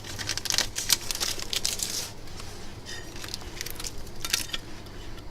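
Thin plastic sheets and small parts being handled on a workbench: crinkling and scattered small clicks, busiest in the first two seconds.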